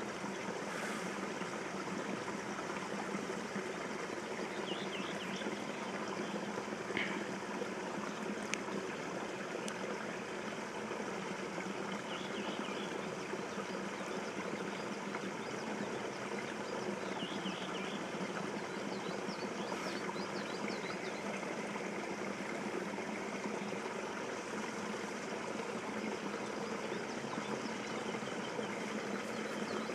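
Steady rush of creek water running past a beaver site, with a small bird chirping faintly a few times.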